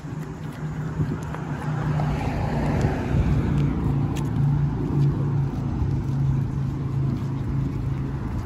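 Street traffic: a car passes, its noise swelling to a peak about two to three seconds in and then fading, over a steady low engine hum.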